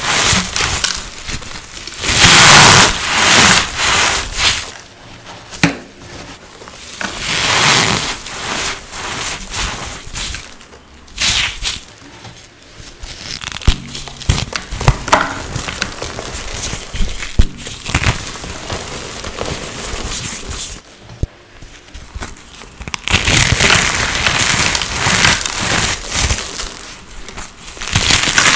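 Reformed blocks of dry coloured Holi powder being crushed en masse: dry crunching and crackling with sharp snaps, coming in several loud spells with quieter crumbling between them.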